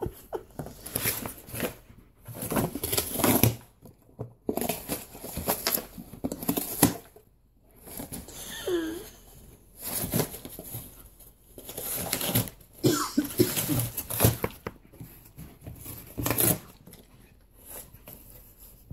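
Alaskan Malamute tearing apart a corrugated cardboard box with its teeth and paws: repeated bursts of ripping and crunching cardboard with short pauses between.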